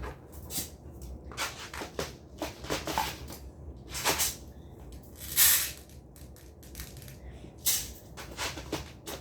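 Small fidget toys being handled and dropped into a bin: irregular rustles and light knocks, the loudest about five and a half seconds in.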